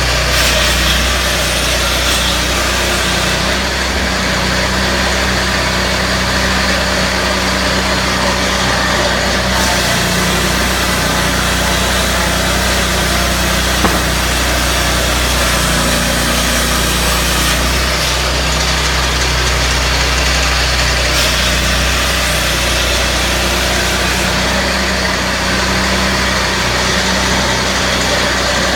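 Honda 22 hp V-twin petrol engine of a Turbosawmill M6 swingblade sawmill running steadily, with a single sharp click about 14 seconds in.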